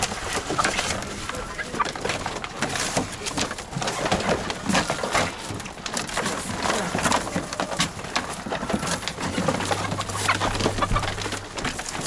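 Lohmann White laying hens clucking and calling while being handled, with wings flapping and cardboard boxes being handled in irregular bursts.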